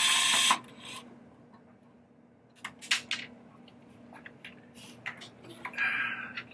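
A power screwdriver running briefly as it backs a screw out of the pinball power supply, stopping about half a second in. Then light clicks and rubbing of the screw and metal parts being handled, with a short scraping sound near the end.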